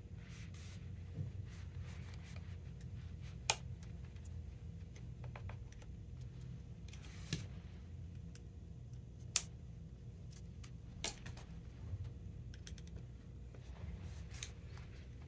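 Scattered sharp plastic clicks and short scrapes as grommets are pressed and worked into a Head Radical tennis racket frame with an awl; the loudest clicks come about a quarter of the way in and just past the middle.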